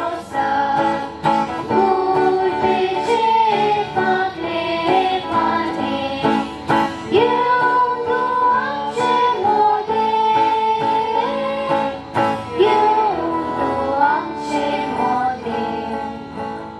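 Christmas carol sung by a small group of mostly female voices to strummed acoustic guitar, fading out near the end.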